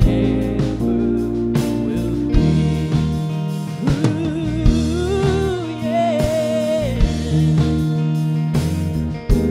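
A live worship band playing, with drum kit and guitar, and a wavering, sung-sounding melody line through the middle.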